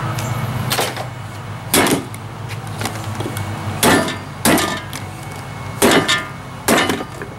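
About six irregularly spaced hammer blows on a Nutribullet blender's metal motor housing, each a sharp metallic knock with a brief ring. The housing is being beaten to get it off the motor.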